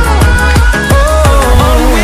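Electronic dance music with a fast, steady kick-drum beat and synth melody lines.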